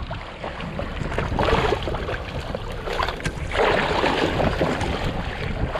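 Seawater rushing and splashing along the side of a moving boat as a striped marlin is held by the bill and towed alongside to push water through its gills, over a steady low rumble. The splashing surges twice, about one and a half seconds in and again from about three and a half seconds in.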